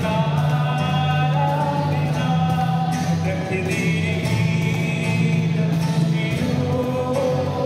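Live acoustic performance of a Hindi film-song mashup: singing into microphones, accompanied by strummed acoustic guitar and a cajon.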